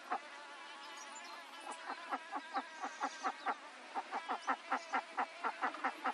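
Farm ambience: a steady buzz of insects under a run of rapid, evenly spaced animal calls, about four a second, that start faintly about a second and a half in and grow louder.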